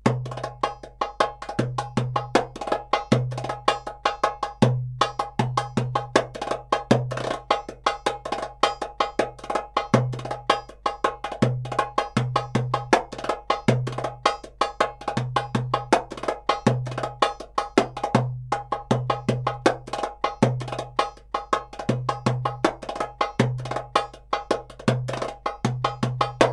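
Background music: a fast, steady percussion beat of cowbell-like strikes over a repeating bass line.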